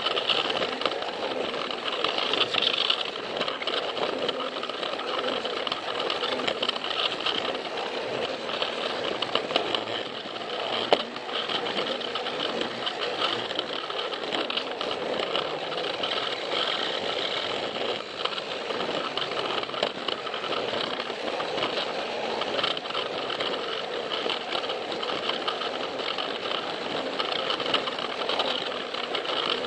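Battery-powered Plarail toy train's small electric motor and gearbox whirring steadily, with light clicks from the wheels on the plastic track and one sharper click about eleven seconds in.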